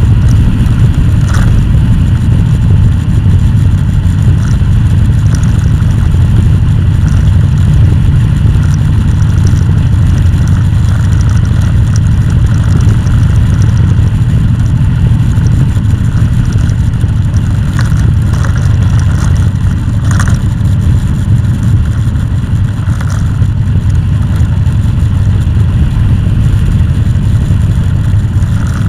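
A vehicle engine running steadily with a loud, low rumble that stays even throughout.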